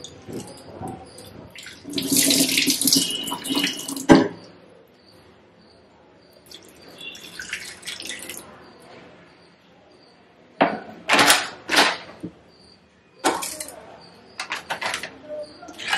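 Water poured from a glass over poha (flattened rice) in a steel sieve and splashing as the flakes are rinsed by hand, ending in a sharp knock about four seconds in. Later come several short sharp knocks and rustles as the sieve is moved and the board is brushed.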